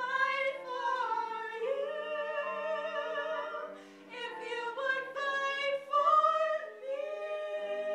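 Women singing a musical-theatre song with strong vibrato, over sustained piano chords.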